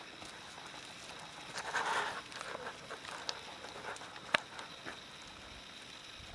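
Hooves and a handler's boots walking on soft muddy ground, with scattered light steps and patter. There is a short rush of noise about two seconds in, and a single sharp click a little after four seconds in, the loudest sound here.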